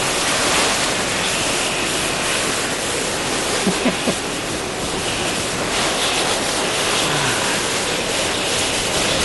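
Straight-line thunderstorm winds driving heavy rain: a loud, steady rush of wind and rain.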